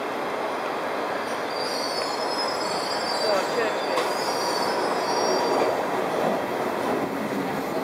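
Mumbai suburban local electric train running into the station along the platform, with a steady rolling rumble and a high metallic squeal from about one and a half to five and a half seconds in as it arrives.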